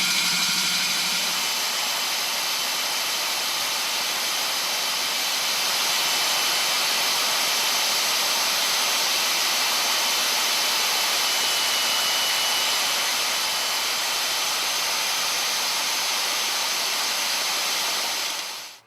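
Diamond core drill running steadily as it cuts, a constant high, hissing drone that stops abruptly near the end.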